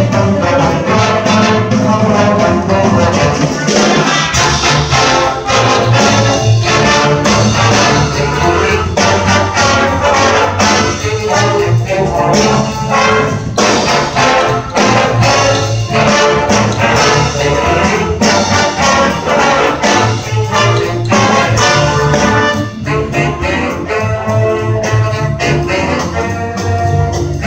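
A jazz big band playing live: saxophones, trumpets and trombones in full ensemble over piano, guitar and upright bass, with a strong walking bass line and a steady beat.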